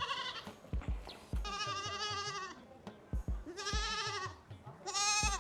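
Goats bleating: four quavering bleats, the middle two about a second long each.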